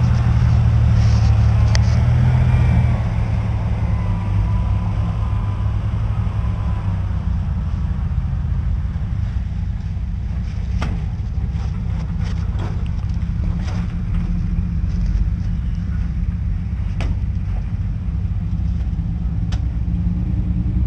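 Vehicle engine running steadily at low speed during a slow creek-crossing tow, a little louder for the first few seconds. A few sharp clicks or knocks come in the second half.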